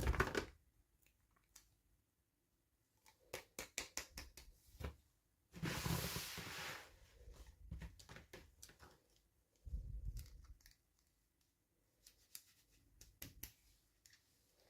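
Toy packaging handled and opened by hand: scattered clicks and taps, a rustle about six seconds in, and a soft thump near ten seconds.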